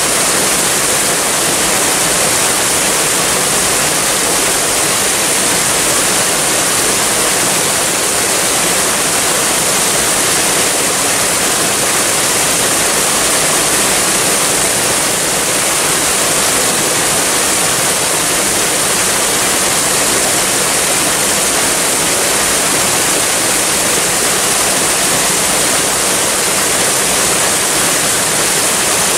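Waterfall: water falling and rushing in a steady, even hiss with no breaks.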